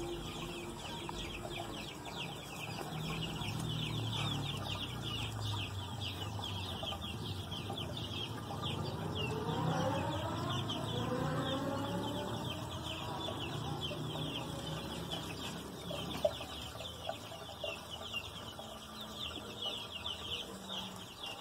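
Chickens clucking in the background, over a dense high chirping that runs throughout, with a longer call that rises and falls in pitch about nine to twelve seconds in.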